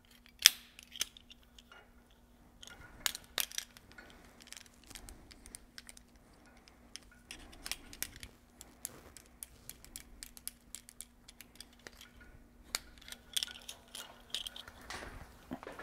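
Scattered sharp metallic clicks and clinks of a carabiner and rope device being handled and clipped, with the loudest click about half a second in and small clusters of clicks later. A faint steady hum runs underneath.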